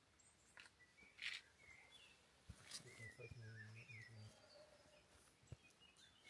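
Near silence, with faint scattered bird chirps and a few soft clicks.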